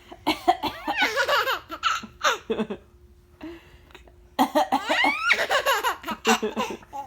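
A baby laughing and coughing in two bursts, the first about a third of a second in and the second about four and a half seconds in, with a quiet gap between.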